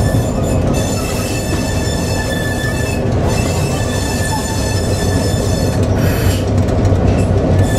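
Class 17 Clayton diesel locomotive heard from inside the cab as it runs along the line: its twin diesel engines give a steady, loud, deep hum. A high-pitched whine comes and goes over it.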